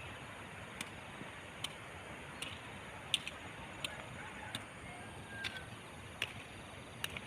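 Steady rush of a river, with sharp ticks repeating about once a second and a few faint short whistles.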